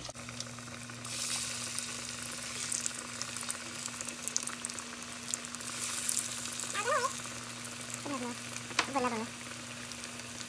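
Hot Cheetos–coated chicken pieces deep-frying in a pot of hot oil: a steady crackling sizzle that grows louder about a second in.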